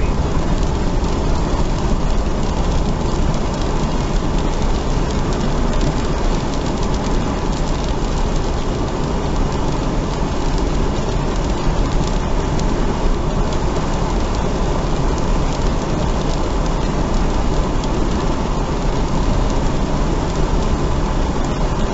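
Rain on a moving car mixed with road noise, heard from inside the cabin: a steady, even rush with a heavy low rumble and no distinct events.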